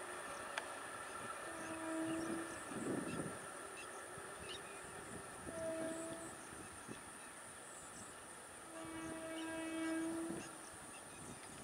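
Horn of an Indian Railways MEMU electric train sounding three steady two-note blasts as it approaches: a short one about two seconds in, another around six seconds, and a longer one of nearly two seconds near the end, over the faint sound of the train on the rails.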